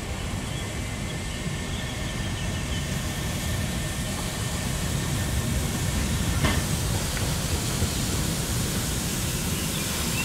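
Narrow-gauge steam train running: a steady rumble from the wheels on the rails with some steam hiss. A single sharp knock comes about six and a half seconds in.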